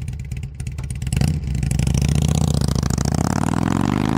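Motorcycle engine idling with an even beat, then revved about a second in and held at higher revs.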